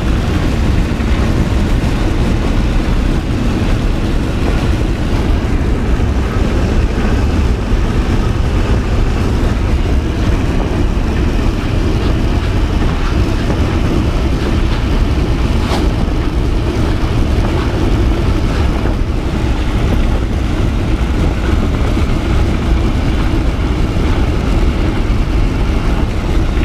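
Steady road and wind noise inside the cabin of a Chevrolet cruising at highway speed: a dense low rumble with an even hiss above it.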